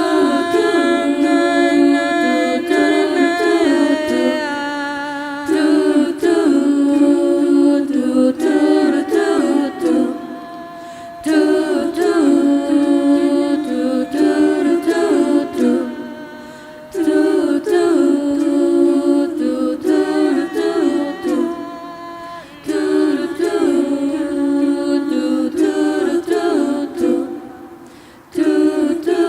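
An a cappella vocal group singing in close harmony, with no instruments: several sustained voice parts over a low backing line. The song goes in repeating phrases of about five to six seconds, each dipping at its end before the next begins.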